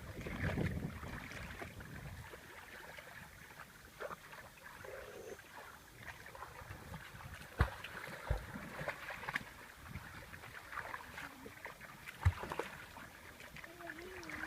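Shallow water splashing and sloshing, with a few sharp knocks, as cast-net fishing goes on in it. Wind buffets the microphone for the first couple of seconds.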